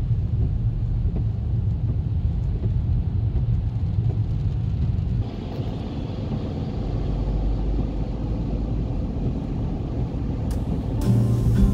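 Car cabin noise while driving on rain-wet roads: a steady low engine and road rumble, its sound changing about five seconds in. Plucked-string music starts near the end.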